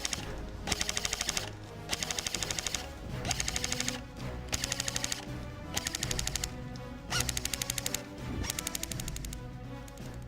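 WE 999c G36-style airsoft electric gun (AEG) firing on full auto in seven short bursts, each a rapid mechanical rattle lasting under a second.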